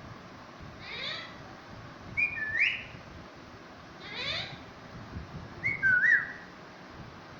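A parrot whistling the same two-part phrase twice, a short note then a swooping one, each time just after a brief raspy squawk.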